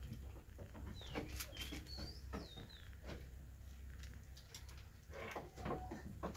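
Small birds chirping a few times between about one and three seconds in, over short clicks and rustles from rabbits nibbling a piece of banana held out by hand, with a denser patch of clicking near the end.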